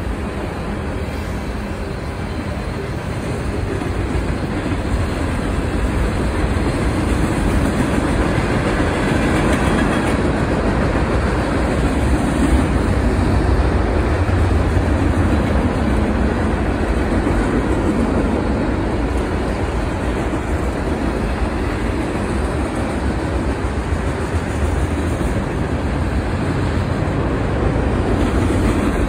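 Freight train cars rolling past close by: a steady rumble of steel wheels on the rails, growing a little louder a few seconds in.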